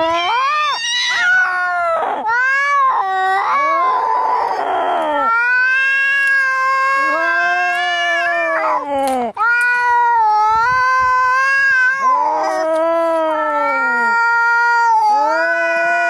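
Angry cats caterwauling as in a cat fight: long, drawn-out yowls that rise and fall in pitch, one after another, with a harsh, raspy cry about four seconds in.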